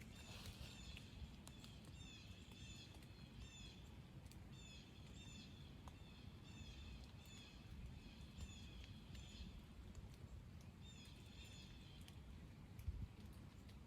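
A bird chirping faintly outdoors: short high notes, about two or three a second, in runs with pauses between, over a low rumble of wind or ambience. A soft low bump comes near the end.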